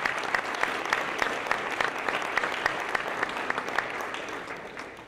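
A crowd applauding, with some louder single claps standing out; the applause dies away near the end.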